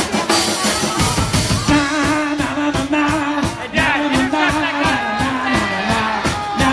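A live soul band plays: drums keep a steady beat under sustained horn and guitar lines, with a male singer's voice over the top.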